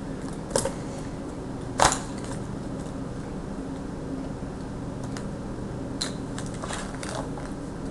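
Small board game pieces being handled and fitted into place: a few sharp clicks and knocks, the loudest about two seconds in, over a steady low hum.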